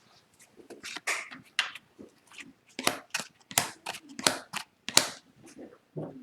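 Trading cards being handled and flicked through, giving a dozen or so crisp card snaps and slides at an irregular pace, the loudest about five seconds in.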